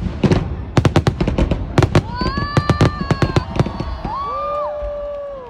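Aerial fireworks shells bursting in rapid, uneven bangs and crackles. About two seconds in, a few long held tones rise over the bangs, each lasting a second or more.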